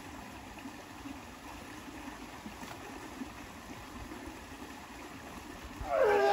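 Shallow stream water flowing and trickling steadily over rocks. Near the end a person's loud cry breaks in, sliding down in pitch.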